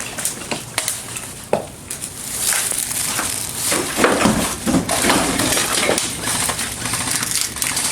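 Rustling and crunching with scattered sharp clicks, busier and louder from about two and a half seconds in.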